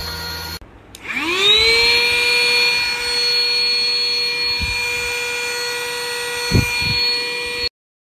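HAN RIVER HRXCQ03WT cordless stick vacuum's motor running with a steady whine. After a brief break it starts up again, its whine rising in pitch and settling to a steady high whine. There is a light knock near the end, and the sound cuts off abruptly.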